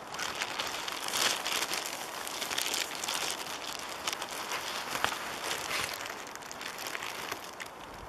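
Close crackling and rustling noise, like handling noise on the microphone, starting suddenly and cutting off shortly before the end.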